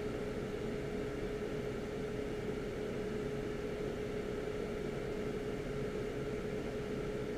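Hot air rework station blowing steadily, an even hiss with a steady hum, as it heats a BGA reballing stencil to reflow solder paste into balls.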